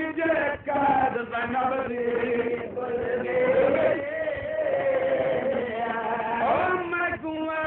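A man's voice chanting in a slow, drawn-out melodic style, holding and bending long notes. This is the sung recitation of a zakir at a majlis. It is heard from an old tape recording, with the highs cut off.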